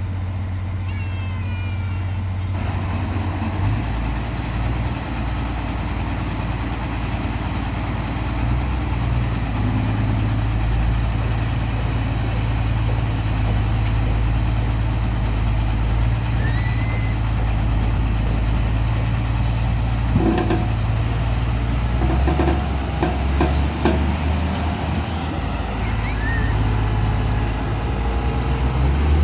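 Heavy diesel engines of construction machinery running steadily with a low drone that changes pitch a couple of times. Knocks and clanks come from about twenty seconds in, and a few short high chirps are heard.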